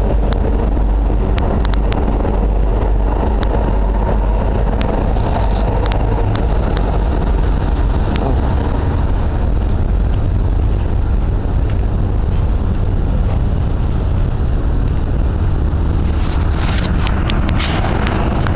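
Steady loud rumble of street traffic mixed with wind buffeting the microphone, with a few sharp clicks scattered through it.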